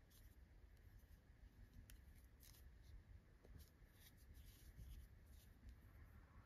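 Near silence: faint, scattered rustling of fingers handling yarn and a small crocheted piece.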